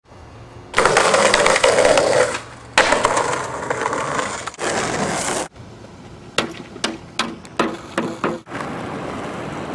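Skateboard wheels rolling over rough pavement in two loud stretches, then a run of about eight sharp clacks of the board on concrete, then rolling again more quietly.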